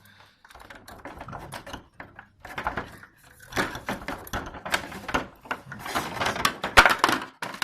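Plastic and metal parts of a split air-conditioner's indoor unit clicking, knocking and scraping as the blower wheel is tugged at its socket while the evaporator coil is lifted. The sounds come in irregular bursts, with one sharp knock near the end.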